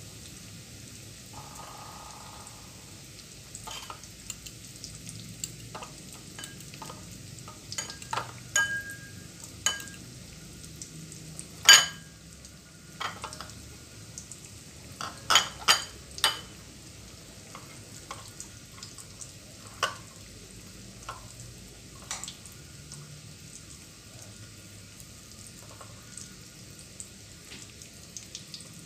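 Breaded Spam sticks deep-frying in hot oil in a wok: a steady sizzle broken by scattered sharp pops and crackles, the loudest about twelve and fifteen seconds in.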